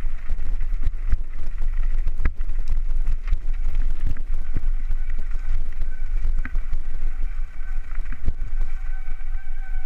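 Mountain bike rolling fast down a rough gravel track, heard from a camera carried on the ride: constant low rumble with many rattling clicks from the stones. A thin steady whine sets in about halfway through.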